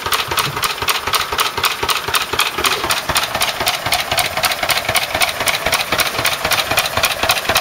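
1929 Lister A single-cylinder stationary engine running steadily on TVO, firing in an even, rapid beat while its flat belt drives a saw bench.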